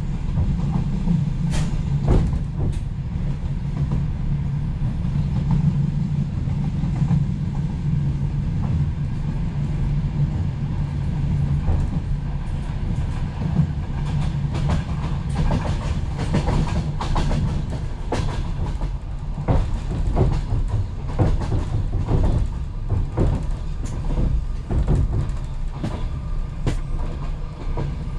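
Ukrainian Railways sleeper coach running on the line: a steady low rumble with the clickety-clack of wheels over rail joints, the clicks coming much more often in the second half.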